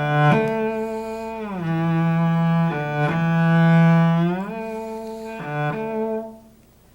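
Cello playing bowed notes joined by audible slides: a smooth glide down about a second and a half in, and a glide back up a few seconds later, ending on a held note that fades just before the end. These are left-hand shifts along the fingerboard, slid so the pitch carries between notes.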